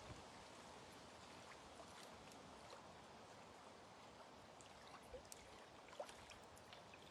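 Near silence: a faint steady outdoor hiss with a few scattered light ticks.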